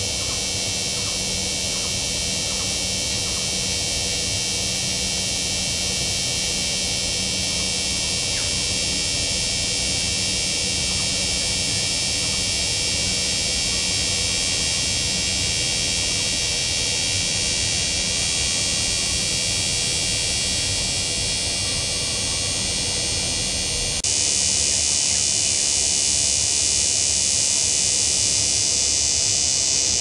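Cicada calling: a loud, continuous high-pitched buzz that holds steady without a break. About 24 seconds in, the buzz steps up slightly louder and higher.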